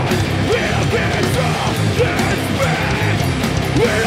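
A metal band playing live: distorted electric guitars, bass and drums, with a vocalist shouting into the mic.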